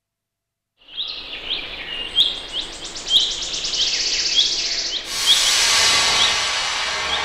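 Woodland birdsong: short high chirps repeated about once every half second, with a fast high trill over them for a few seconds. About five seconds in a rushing swell of noise comes in and slowly fades.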